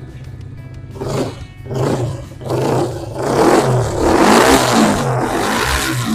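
Yamaha R125's single-cylinder four-stroke engine revved through a Black Widow exhaust: a few short blips of the throttle, then a longer, loud rev held from about halfway through.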